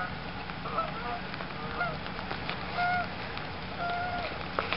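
Geese honking: about half a dozen short calls, the last two a little longer.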